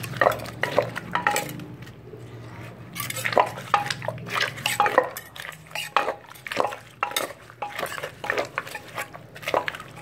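A wooden pestle pounding cherry tomatoes and chillies in a clay mortar for som tam, in a quick, uneven run of wet knocks, with a metal spoon knocking against the mortar. There is a short lull about two seconds in.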